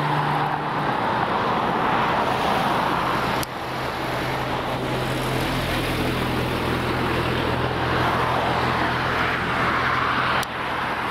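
Road traffic passing on a bridge: a steady wash of car tyre and engine noise, with a low engine hum joining about three and a half seconds in. Two short sharp clicks, about three seconds in and near the end.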